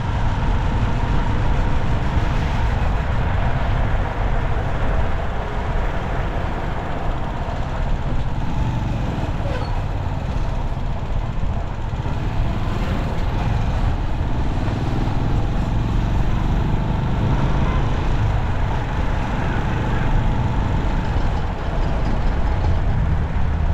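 Steady road-vehicle traffic noise with a continuous deep rumble.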